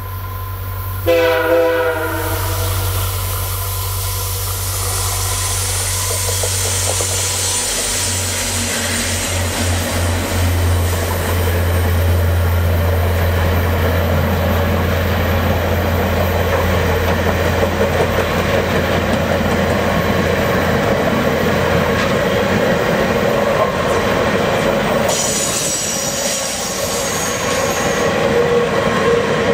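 VIA passenger train led by two F40PH-2D diesel locomotives. A short horn blast sounds about a second in, then the locomotives' engines run loud as they pass. The passenger cars follow, rolling by, with a high wheel squeal near the end.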